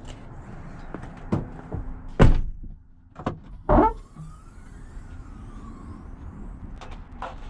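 A handful of knocks and thuds while long sewer pipes and drains are loaded into a small car. The loudest comes about two seconds in and another near four seconds.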